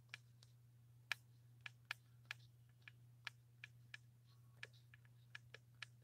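Faint, irregular light clicks and taps, roughly three a second, over a low steady hum.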